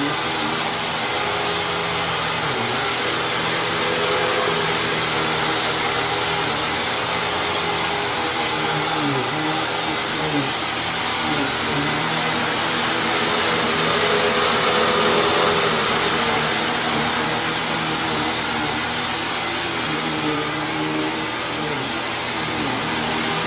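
Hoover WindTunnel Lite (U5394-900) upright vacuum cleaner running: a steady motor and airflow noise whose hum dips and wavers in pitch now and then.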